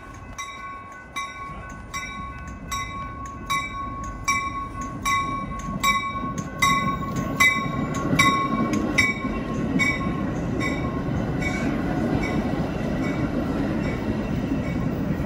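Commuter train's cab-car bell ringing about once every 0.8 s as it pulls into the station, loudest as the cab car passes and then fading, while the rumble of the bilevel coaches rolling past grows.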